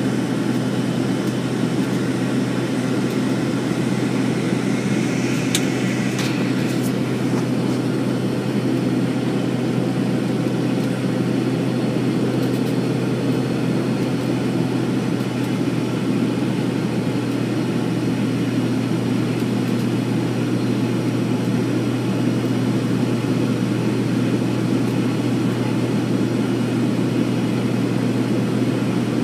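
Steady engine drone and airflow noise heard inside the passenger cabin of a small airliner climbing after take-off, a constant low hum under a dense rushing noise.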